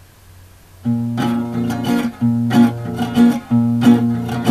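Acoustic guitar entering about a second in and strummed in a steady rhythm, chords struck roughly every two-thirds of a second over a ringing low bass note.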